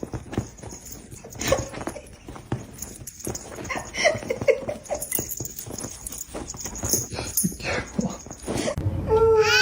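A dog whimpering in short whines among scattered clicks and knocks, then starting a long wavering howl near the end.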